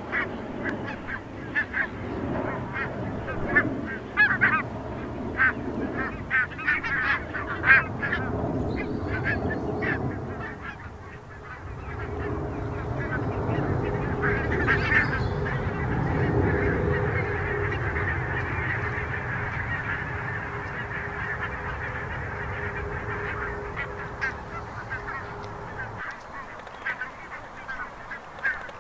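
A flock of geese flying over, honking: many short calls overlapping in the first ten seconds, then scattered honks. Behind them a steady low noise swells up after about twelve seconds and drops away near the end.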